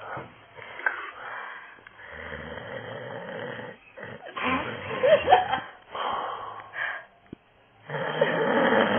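A man snoring heavily in a series of long rasping breaths, each lasting a second or two, with a short quiet pause about seven seconds in.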